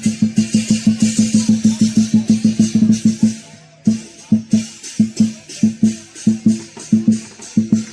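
Lion dance percussion: a large drum beaten in a fast run with clashing cymbals on each beat. It breaks off about three and a half seconds in, then resumes at a slower beat.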